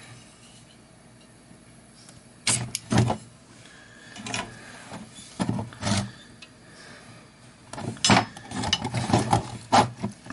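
Irregular knocks, clicks and rattles as a circuit board and a hard plastic housing are handled on a workbench. The board is being fitted back into the case. The strikes come in scattered clusters and are busiest in the last couple of seconds.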